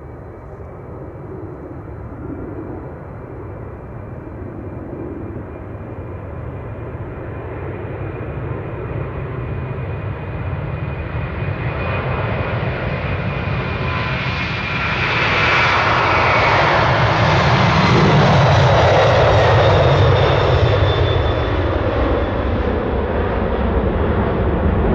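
Four jet engines of a Boeing 747-400 freighter at takeoff power during its takeoff roll and liftoff. The engine noise grows steadily louder as the aircraft comes down the runway and is loudest about two-thirds of the way through, when it passes, with a high whine dropping in pitch. It eases slightly near the end as the jet climbs away.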